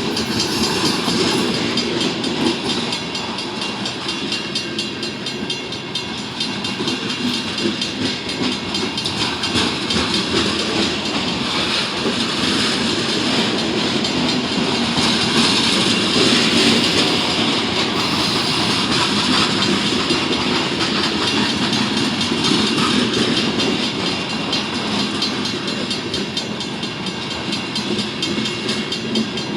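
Freight cars of a manifest train rolling past, a steady noise of steel wheels on rail with fine repeated wheel clicks throughout.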